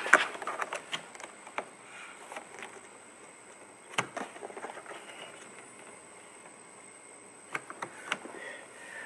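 Small screwdriver prying at the plastic inner mirror trim cover of a 2006 Honda CR-V's front door, giving scattered clicks and taps of metal on plastic as the snug cover is worked loose. There is one sharp click about four seconds in.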